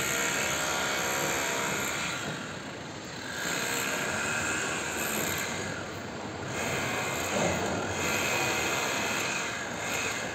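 Steady machine-like noise of construction-site equipment running, swelling and easing a few times.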